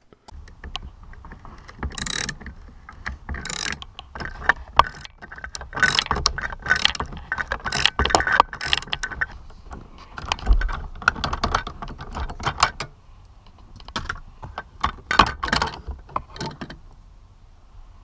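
Ratchet wrench with a T50 Torx bit clicking in several runs of strokes as it backs out the Torx-head seat belt anchor bolt.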